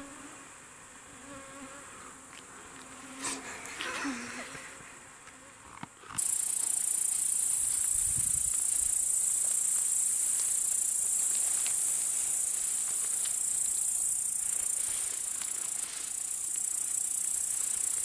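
Mosquitoes whining close around the microphone. About six seconds in, a loud, steady, high-pitched insect chorus starts suddenly and holds.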